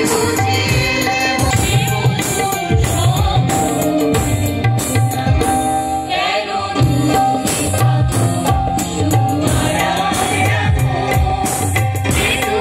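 Live song sung by several women together into microphones, over a steady drum beat.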